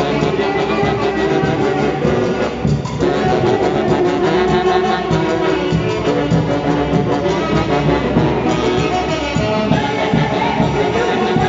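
Orquesta típica music from the Mantaro Valley: a band of wind instruments playing a melody together over a steady rhythmic beat.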